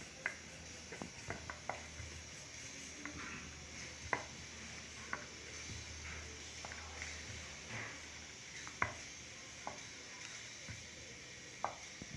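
Wooden rolling pin rolling out a disc of stiff dough on a wooden rolling board, giving irregular light clicks and knocks as the pin rolls and shifts on the board.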